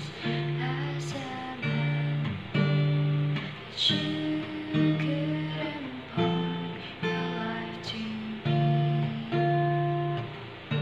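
Acoustic guitar played with a capo, chords struck one after another, about one a second, each left to ring.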